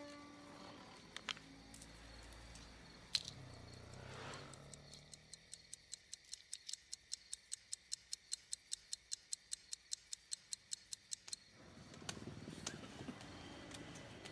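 Mechanical watch ticking steadily and faintly, about three ticks a second; the ticking starts about five seconds in and stops after about six seconds. A few single clicks come before it.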